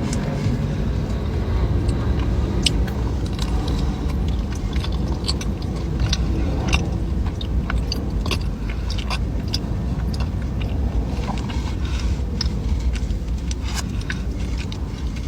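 Close-up eating: crisp, crackly bites and chewing of pastries, many irregular sharp crunches, over a steady low rumble.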